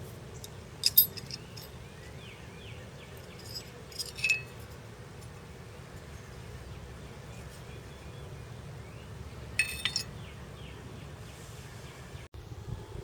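Metal clinking three times: short, ringing clinks about a second in, at about four seconds and near ten seconds, as of metal tools or parts knocking together.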